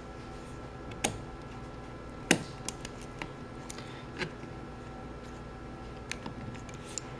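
Utility knife blade cutting and prying at the small plastic chip holder on an ink cartridge: scattered sharp clicks and snaps of the plastic, the strongest about one, two and four seconds in, over a faint steady hum.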